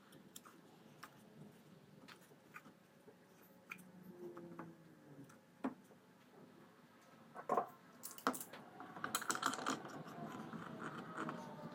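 Light clicks and knocks of a carbide-tipped circular saw blade being handled and set in place on a plywood sharpening jig. The loudest knocks come about seven and a half and eight seconds in, followed by a run of small clicks and rattles.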